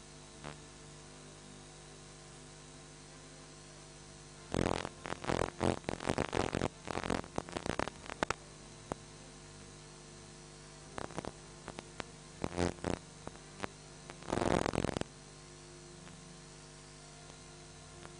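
Steady electrical hum, broken by three clusters of irregular crackling bursts: the first lasting about four seconds, a shorter run a few seconds later, and a brief dense burst near the end.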